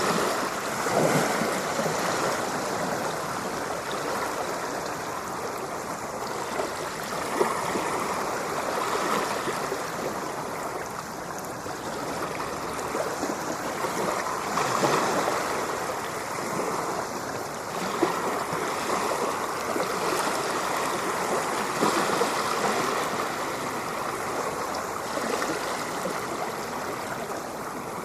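Ocean surf washing continuously, swelling and easing every several seconds as waves break and run back.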